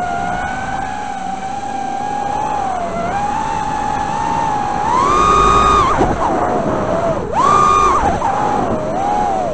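Emax Tinyhawk micro FPV drone's brushless motors and propellers whining, heard from the camera on board. The pitch holds fairly steady, rises sharply with throttle punches about halfway through and again later, and drops between them.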